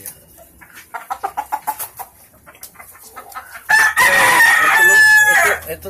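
Rooster clucking in a quick run of short calls, then a gamecock crowing: one long, loud crow close by that lasts nearly two seconds.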